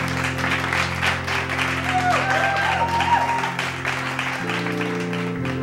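Background music with sustained chords; the chord changes near the end.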